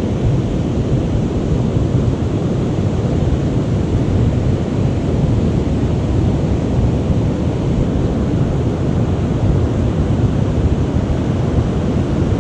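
Wind buffeting the microphone over the steady rumble of heavy ocean surf.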